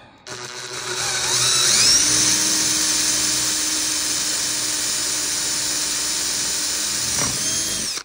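Electric drill boring a hole through an aluminium bracket. The motor whine rises over the first two seconds, runs steadily at high speed, then stops just before the end with a falling pitch.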